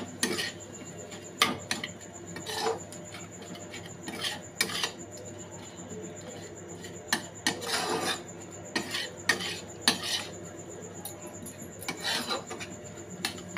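Metal spatula scraping and knocking against a wok while stirring chicken mince, in irregular strokes.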